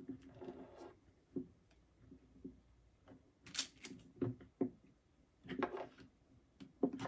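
Hard plastic parts of an autofeeder mounting platform being handled and fitted together: scattered small clicks and knocks, with a short rustle near the start.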